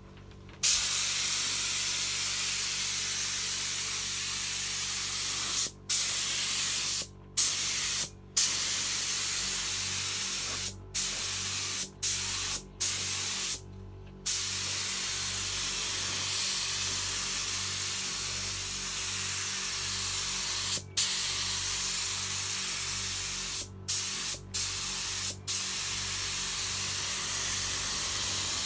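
Air-fed gravity-cup spray gun with a 1.8 mm tip spraying primer, a loud steady hiss of air and atomised paint. The trigger is let off about ten times for a split second, each break a brief gap before the hiss starts again.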